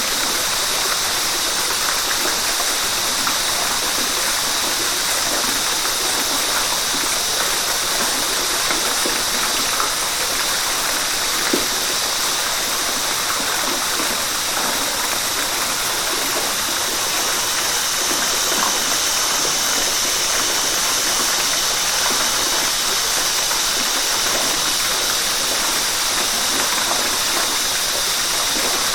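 River water rushing and splashing over rocks: a steady, unbroken hiss, brightest in the high range.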